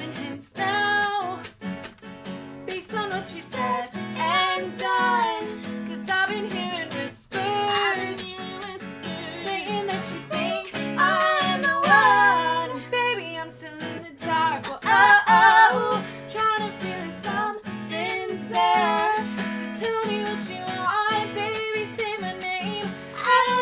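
Live acoustic guitar strumming chords under a woman singing lead, with a second woman's voice joining in at times.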